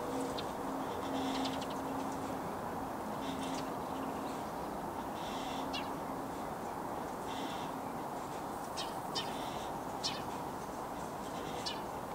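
The last hum of a church bell fading out after the ringing has stopped, a low tone that swells and dies away about halfway through. Over it come short, sharp bird calls several times, against a steady background hiss.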